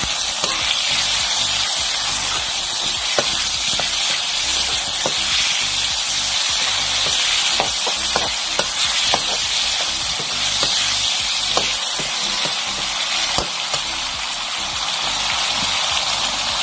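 Pork pieces sizzling in hot oil in a metal wok, stirred with a metal spatula that scrapes and clicks against the pan every so often, the clicks thickest in the middle.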